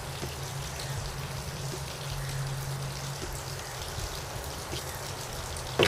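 Steady rushing background noise with a low hum, and one sharp click near the end.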